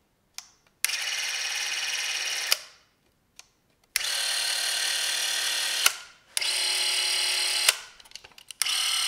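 Bauer C107XL Super 8 camera's motor and film transport running in three bursts of about two seconds each, each starting and stopping with a click, followed by a few quick clicks of handling near the end.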